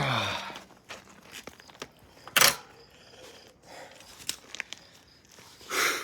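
Handling noises of a bicycle wheel being worked on: a short falling sigh or grunt at the start, scattered light clicks, one sharp knock about two and a half seconds in, and a brief breathy rush near the end.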